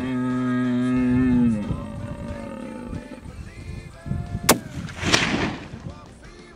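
Red stag roaring: one long, deep bellow held at a steady pitch for about a second and a half, then dropping away and trailing off. About four and a half seconds in, a rifle shot cracks, with a second report about half a second later.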